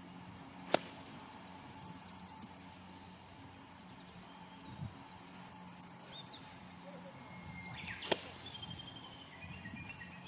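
Two golf bunker shots, the club striking through the sand and ball about seven seconds apart, each a single sharp strike. Between them a steady high insect hum and a few short bird chirps.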